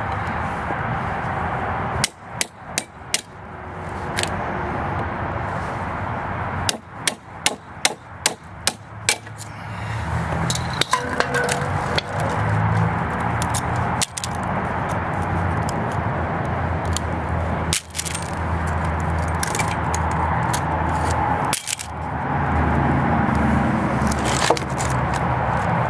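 Hammer blows on a microwave oven transformer, driving its steel E-core laminations out: a quick run of about four strikes a couple of seconds in, then about eight in a row near the middle, then single knocks every few seconds, over steady background noise.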